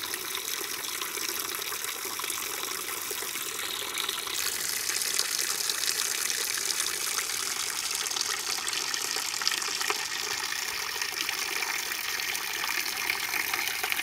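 Water gushing from the open end of a plastic pipe and splashing onto rocks: a steady rush that shifts and grows a little louder about four seconds in.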